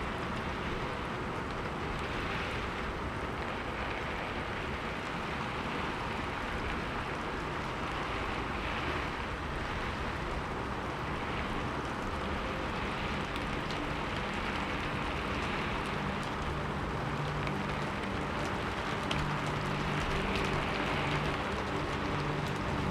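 Steady rain falling, a soft even patter. About halfway through, soft low held notes of background music come in beneath it and swell slightly toward the end.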